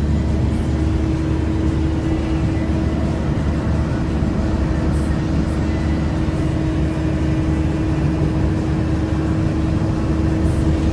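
Steady cabin drone of a JAC 16-seat van cruising on a paved road: engine hum from its 2.8-litre turbo engine mixed with tyre and road noise, with one constant low tone.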